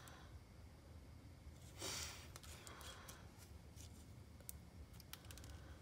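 Near silence of hand soldering on a small brushed electric motor: a brief soft hiss about two seconds in, then scattered faint clicks and ticks as the solder wire and iron are worked against the motor terminal.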